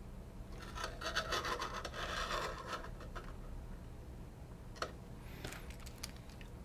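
Handling noise: a circuit board being slid and turned on a work surface, scratching and rubbing for a couple of seconds, then a few light clicks near the end.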